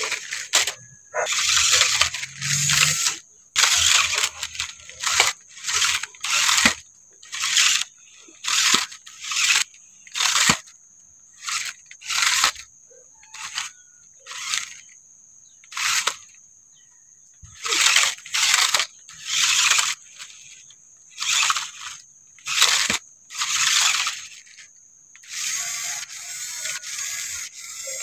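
Toy RC rock crawler's small electric motor and gearbox whirring in short throttle bursts, about one a second, as it claws up a steep dirt bank; a longer run of whirring near the end.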